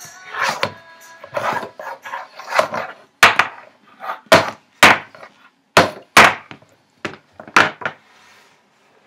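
A rubber chicken slapped repeatedly against a wooden tabletop: about ten sharp, loud whacks at uneven intervals, the first couple carrying a squeaky tone, stopping about a second before the end.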